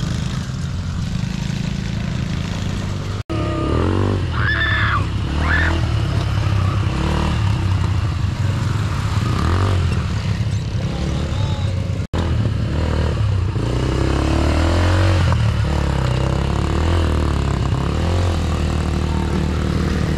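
ATV engines running with a steady low rumble, dropping out abruptly for an instant twice, about three and twelve seconds in.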